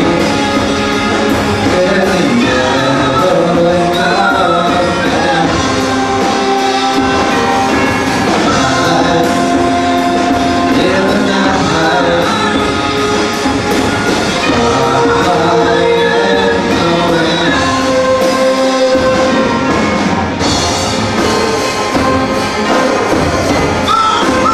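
Community orchestra playing live in an auditorium: held melody notes over a steady beat.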